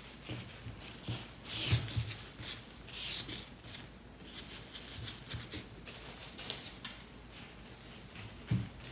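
A cotton T-shirt being folded by hand on a table: soft fabric rustling and swishes, with a few light thumps as it is laid down and smoothed.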